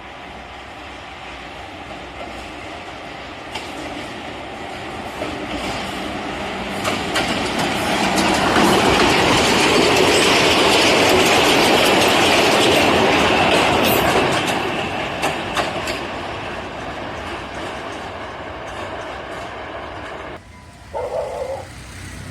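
A train passing on the track, growing louder over about eight seconds, loudest for several seconds, then fading. Wheels clatter over the rail joints throughout.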